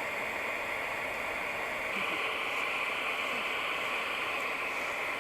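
Steady rushing, hissing noise that grows a little brighter about two seconds in.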